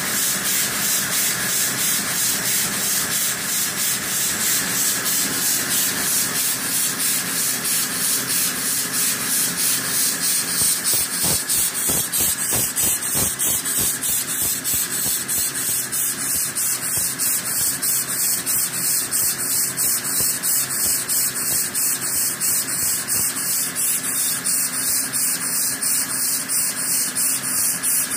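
Homemade single-cylinder engine, converted from an old well water pump and fed by a shop air hose, running steadily. It gives an even, rapid chuff of exhaust hiss with every stroke.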